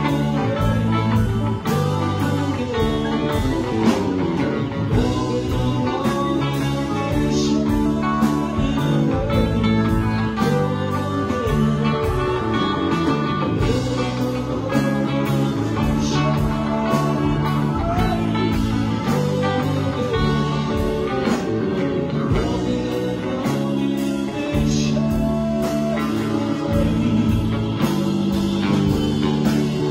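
Live band playing a psychedelic rock jam on electric guitar, bass guitar, keyboard and drum kit, with a steady drum beat.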